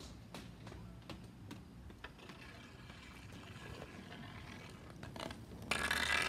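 Faint scattered ticks, then near the end a louder rolling hiss as inline skate wheels roll across a concrete driveway, with a hockey stick blade on the pavement.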